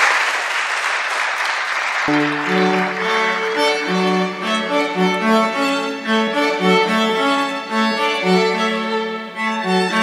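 Applause for about two seconds, which breaks off suddenly. A string quartet of violins, viola and cello then starts playing, the cello carrying a low line under sustained violin notes.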